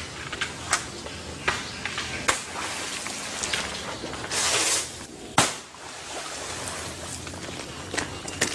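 Crackling and rustling of coconut palm fronds as a monkey twists coconuts loose high in the tree, with scattered sharp snaps. There is a brief rush of noise a little after four seconds in, then a single loud knock about five and a half seconds in.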